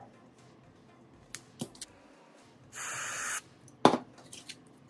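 A short spray hiss lasting under a second, followed by a sharp tap, with a few faint clicks before it.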